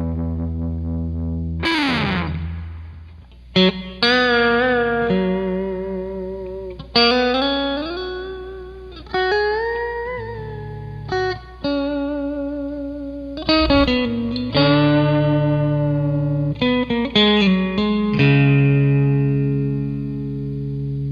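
Electric guitar played through the Xvive Sweet Leo overdrive pedal: picked chords and single notes with string bends, ending on a held chord left ringing.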